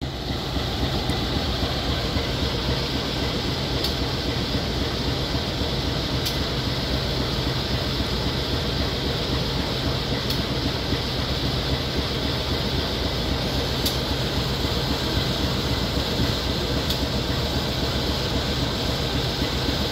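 Diesel-electric locomotive of a standing passenger train idling at the platform: a steady low engine rumble with an even hiss of blowers above it.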